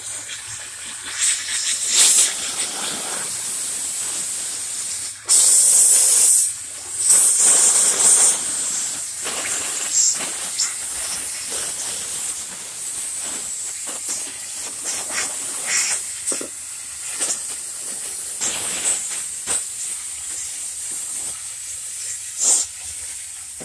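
Steady hissing with irregular louder bursts, loudest from about five to eight seconds in.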